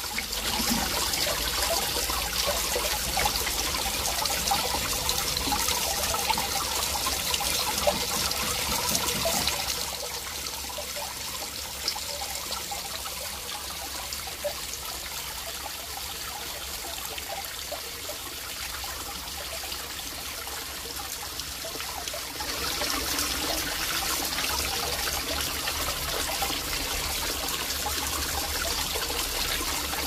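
Water from a small rock waterfall trickling and splashing over stone ledges into a pool below, as a steady, even splashing. It drops quieter about ten seconds in and grows louder and hissier again after about twenty-two seconds.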